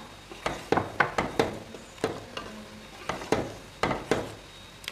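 A spatula stirring thick sorrel-and-beer sauce in an aluminium pot, with repeated uneven knocks and scrapes against the pot's side and bottom.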